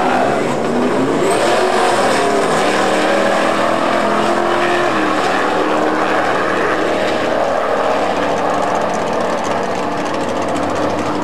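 Two drag-race vehicles launching from the starting line at full throttle. The engine note rises steeply over the first couple of seconds and drops at a gear shift about five seconds in. The engines then pull steadily and fade a little as the cars run away down the strip.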